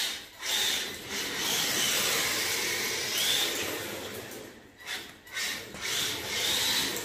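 Small brushed electric motor and drivetrain of a 1/10 RC drift car whirring in bursts of throttle, rising and falling, with its hard plastic tyres scrubbing across a concrete floor. The throttle drops off briefly twice about two-thirds of the way through.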